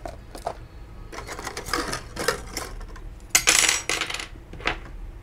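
Small hard objects clicking and clattering as they are handled and set down, with a louder rattle a little past halfway.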